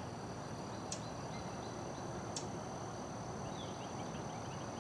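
Marsh ambience: a steady high insect trill over a low outdoor hiss, with two short high bird chips about a second apart early on and a few faint downward bird notes near the end.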